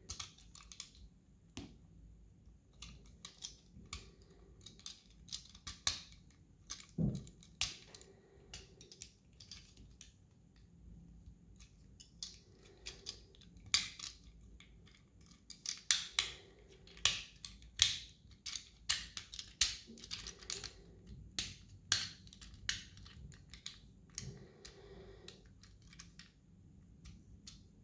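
Small plastic clicks and snaps, irregular and close together, as a mini transforming toy car is handled and its parts are folded and pushed into place; the clicks come thicker and louder in the second half.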